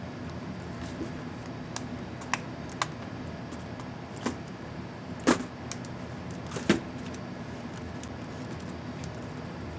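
Small plastic clicks from an Acer Aspire M5-581T laptop's Delete keycap being snapped onto its hinge clips and pressed: a few light clicks, then two louder snaps about five and seven seconds in, over a steady low hum.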